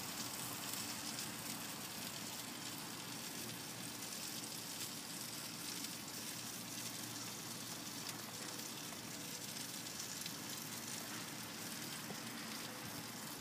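Seasoned chicken drumsticks sizzling on a hot grill grate: a steady, crackly hiss.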